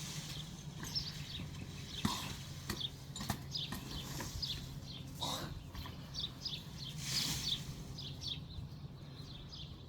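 Many short, high chirps, typical of small birds, scattered over a steady low hum.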